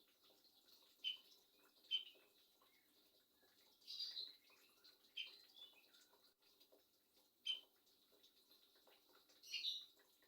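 A murai songbird with a hoarse voice giving about six short, high-pitched sounds a second or more apart, two of them longer, one about four seconds in and one near the end; the bird is hoarse and coughing.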